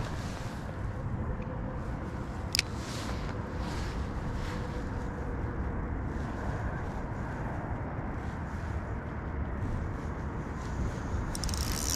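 Steady outdoor rush of flowing water and wind on the microphone, with one sharp click about two and a half seconds in and a bright high hiss starting just before the end.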